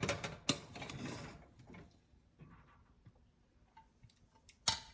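Kitchen utensils being handled: a couple of knocks and a short scraping rustle at first, then a few faint clicks, and a sharp click near the end.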